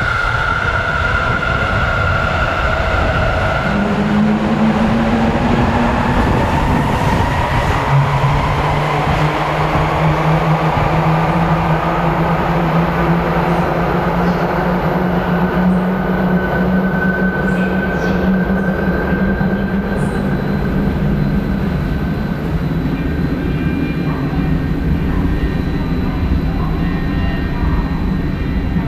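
Sendai Subway Tozai Line 2000-series linear-motor train pulling out of the station. Its motor whine rises in pitch as it speeds up, and then a steady running hum and rumble carries on.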